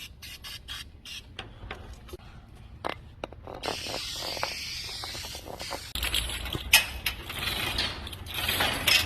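Commercial overhead door hardware at work: metal clicks and knocks, then from about three and a half seconds in a steady rattling run that grows louder around six seconds in, with sharp clacks.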